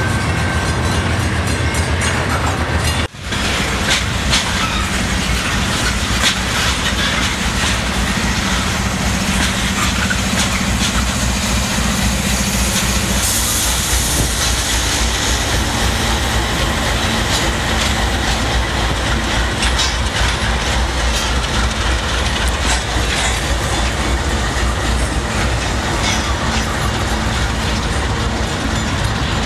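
Freight train rolling past with steel wheels clacking over rail joints. After an abrupt break about three seconds in, Canadian Pacific diesel locomotives pass with a low engine rumble under the steady wheel clatter, followed by rattling autorack cars.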